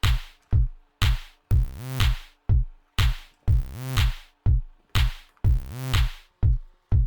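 Background electronic music with a steady drum-machine beat, about two beats a second, and a pitched swell every two seconds.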